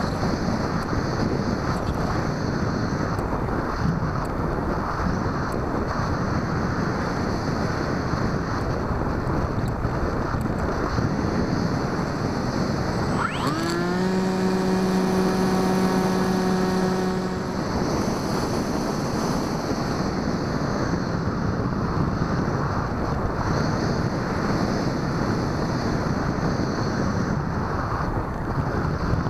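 Steady wind rush over the onboard camera of a Bixler 2 RC glider in flight. About halfway through, its brushless electric motor and propeller spool up with a quick rising whine, run at a steady pitch for about four seconds, then cut out, leaving only the wind.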